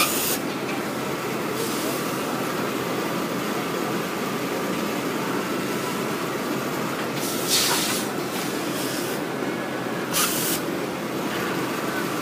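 Computer-controlled pattern sewing machine running as it stitches quilting lines, a steady mechanical whir. Four short hisses break through it.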